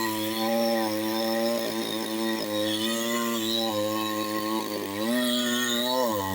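Chainsaw engine running steadily at speed, its pitch sagging and recovering twice in the last couple of seconds as the chain takes load in the cut.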